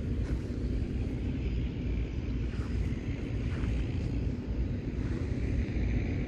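Wind buffeting the microphone: an uneven low rumble with a few faint soft swishes.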